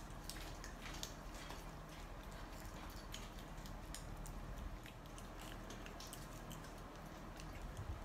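A cat eating a treat from a person's fingers: a run of small, irregular wet clicks and smacks from its mouth.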